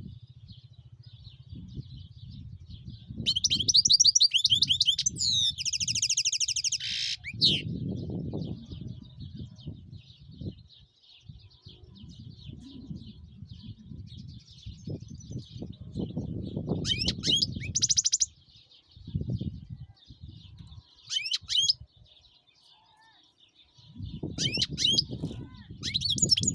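European goldfinch singing: bursts of fast, liquid twittering trills and buzzy notes, the strongest about three to seven seconds in and again near the end, over a soft continuous twitter. Irregular low background noise runs underneath.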